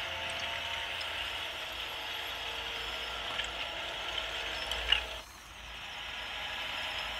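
Small electric drive motors and plastic gearboxes of radio-controlled Bruder toy tractors whirring steadily as they drive. A sharp click comes just before the five-second mark, after which the whir drops off briefly and then builds again.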